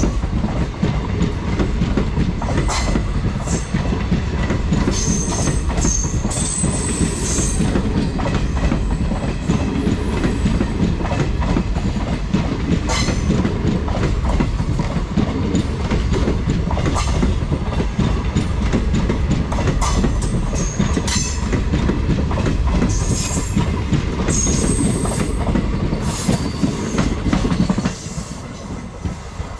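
Freight train wagons rolling past: a loud, steady rumble with the clatter of wheels over rail joints and short high squeals from the wheels at times. The noise drops off abruptly near the end.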